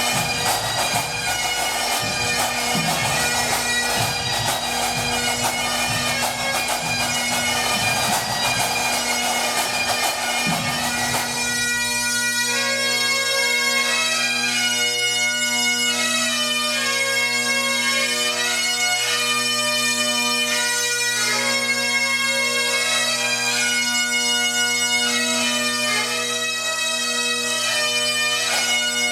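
Pipe band playing: Great Highland bagpipes sounding a melody over their steady drones, with drums beating underneath until about eleven seconds in, after which the pipes carry on alone.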